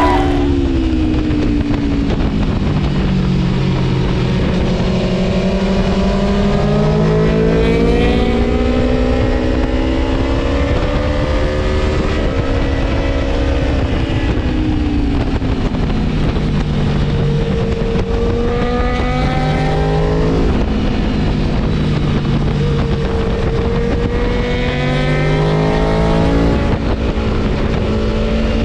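Gabro Stage 3 tuned Aprilia Tuono V4 motorcycle engine under hard riding, its revs climbing and dropping again and again as it pulls through the gears and backs off.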